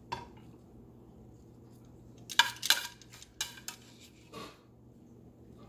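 Metal tongs clinking and scraping against a stainless-steel skillet as leeks are picked out. There is a light clink near the start, a quick cluster of sharp clinks about halfway through, the loudest, and a few softer ones after.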